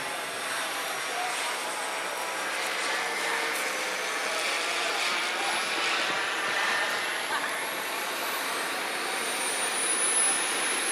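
Small gas-turbine engine of a Boomerang Nano RC jet in flight: a steady broad rush with a thin high whine. The whine climbs slowly in pitch and grows louder near the end.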